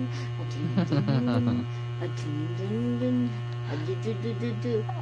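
Steady electrical mains hum, with a voice making wordless sounds over it: a few drawn-out notes, then a quick run of short repeated syllables near the end.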